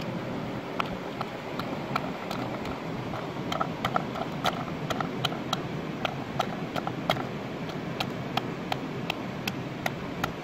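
A wooden pestle pounding chilies in a coconut-shell bowl: a steady run of short knocks, about two to three a second, over a steady background noise.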